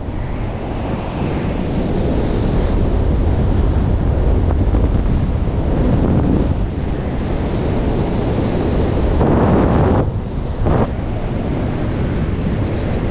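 Freefall wind rushing over a GoPro 360 camera's microphone: loud, steady buffeting with no engine or voice, dipping and gusting briefly about ten seconds in.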